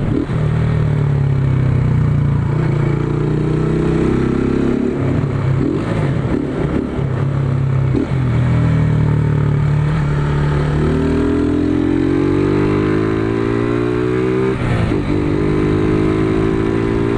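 150 cc single-cylinder motorcycle with an aftermarket ML Competition exhaust, ridden under acceleration. The deep engine note holds with a few short breaks, then rises steadily from about ten seconds in, drops sharply near the end at a gear change, and starts rising again.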